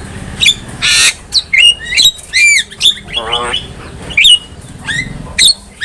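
Javan myna calling: a rapid string of sharp whistles and clicks, with a harsh squawk about a second in and a short wavering warble about three seconds in.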